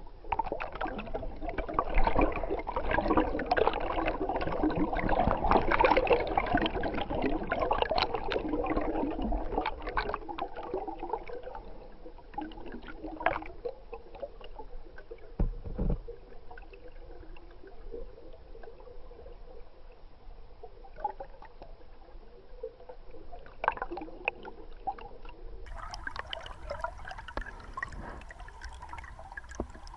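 Stream water gurgling and trickling around a camera held underwater. It is louder for the first dozen seconds, then settles lower, with a few scattered clicks.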